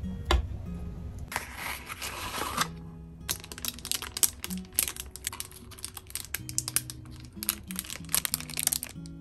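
Kitchen knife cutting a wheel of Camembert and tapping the wooden cutting board, a quick, uneven run of clicks from about three seconds in. Before that, a brief rustle of the cheese's paper wrapper. Soft background music plays throughout.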